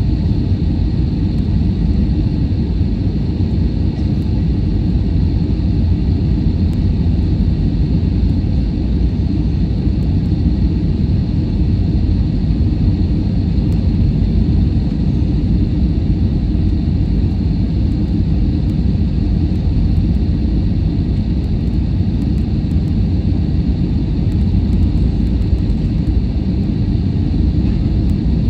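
Airliner cabin noise during descent: a steady low rumble of engines and airflow heard from inside the cabin, with a thin steady high hiss above it.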